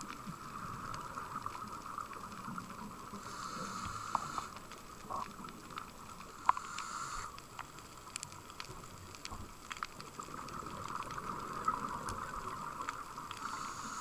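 Underwater sound through a diving camera: a steady muffled hiss with scattered sharp clicks, and three short hissing breaths from a diver's scuba regulator.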